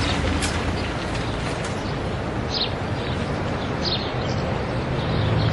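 Outdoor ambience: a steady wash of noise with a couple of short, high bird chirps, about two and a half and four seconds in.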